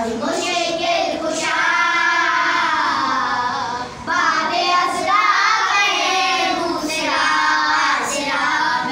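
A group of children singing a manqabat, a devotional Urdu poem in praise of Imam Ali, together, in long held lines; a short break for breath about four seconds in.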